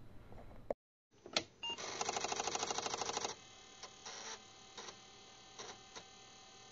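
Compaq Portable computer powering up: a sharp click, then a dense, fast mechanical rattle from its disk drive for about a second and a half. After that come short clicks roughly every 0.7 s over a faint steady hum.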